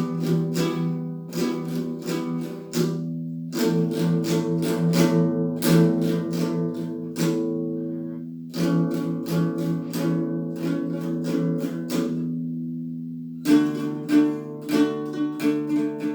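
Strummed guitar music: repeated chords with short breaks between phrases.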